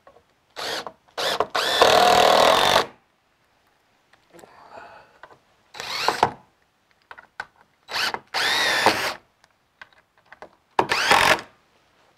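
Cordless drill driving screws into a wooden stair handrail in about six short runs, the longest and loudest lasting about a second, two seconds in.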